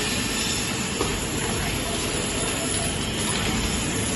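Twin-spindle vertical multi-rip saw with 300 mm circular blades running steadily as its spiked feed roller pushes a wooden block into the blades. There is a small click about a second in.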